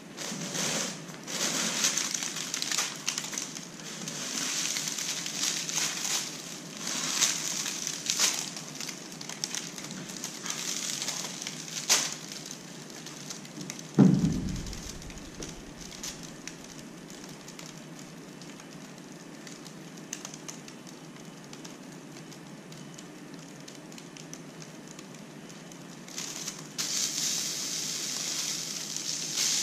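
Liquid nitrogen boiling off, sizzling and crackling around cold balloons. A sharp low thump comes about halfway through. It goes quieter after that, and a steady hiss returns near the end.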